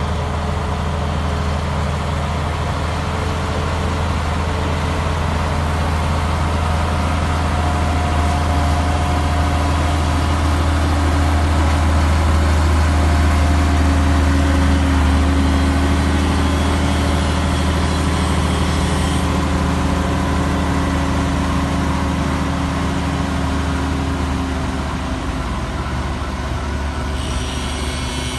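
Komatsu bulldozer's diesel engine running steadily with a deep, even drone, growing louder toward the middle and easing off near the end.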